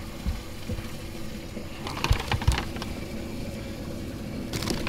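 A steady low mechanical hum, with a few dull knocks and short noisy rustles as bass are handled and lifted out of a boat's live well.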